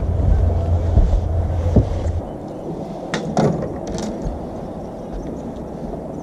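Low wind rumble on the microphone on a bass boat, which drops to a steadier, quieter noise about two seconds in, followed by a few sharp clicks and knocks from fishing gear handled on the boat deck.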